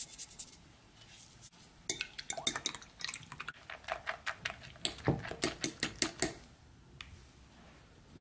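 Metal fork beating raw egg whites in a ceramic dish, the tines clicking quickly against the dish, about five or six strokes a second. The beating starts about two seconds in and stops about six seconds in.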